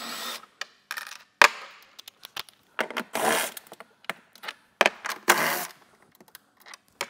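Cordless drill-driver spinning out the frunk liner's bolts in three short bursts, with sharp metallic clicks and rattles between them as the socket, bolts and tool are handled. The loudest sound is a single sharp click about a second and a half in.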